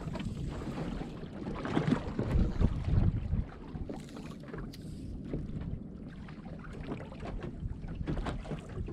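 Water slopping against the hull of a small boat at anchor in a choppy swell, with wind buffeting the microphone. The rumble is louder for a couple of seconds near the start.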